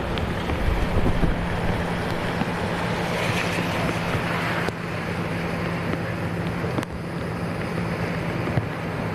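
Wind buffeting the microphone over a steady low hum. A louder hiss rises in the middle and cuts off suddenly.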